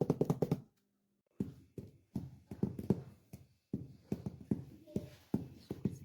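Homemade toy drum with a scotch-tape drumhead, struck with drumsticks made of rolled-up scotch tape: a fast roll of dull taps that stops about half a second in, then after a short pause a steady beat of about three taps a second.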